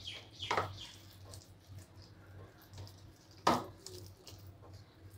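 Hand squishing and kneading a thick batter of grated raw potato and flour in a plastic bowl: faint wet mixing noises with two sharper knocks, about half a second in and about three and a half seconds in, the second the louder.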